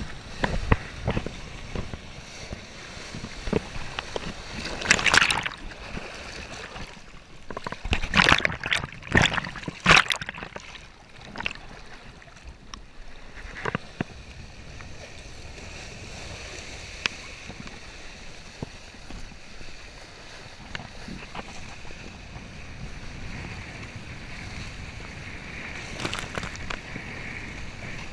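Tona kiteboard planing over choppy sea: a steady rush of water and wind, broken by louder splashes of spray about five seconds in, several between eight and ten seconds, and again near the end.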